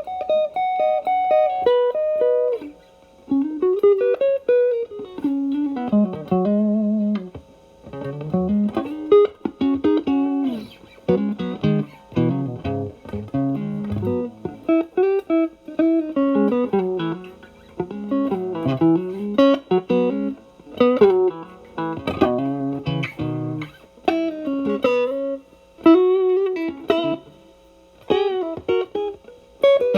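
Stratocaster electric guitar played through a Xotic BB Plus preamp pedal, set as an overdrive, into a Marshall Valvestate amp. Single-note lead phrases with string bends and vibrato and some chords, with short pauses between phrases.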